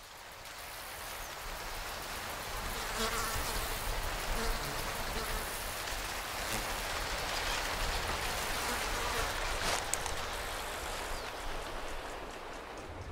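Buzzing insects in a field, a steady outdoor ambience that fades in from silence over the first few seconds.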